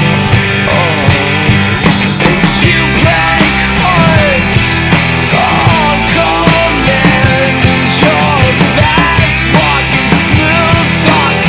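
Rock band playing the song, loud and steady, with a lead melody line that slides up and down in pitch over the band.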